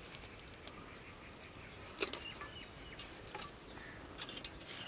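Faint outdoor ambience: a steady low hiss with scattered small clicks and a few short high chirps, the clearest about two seconds in and again near the end.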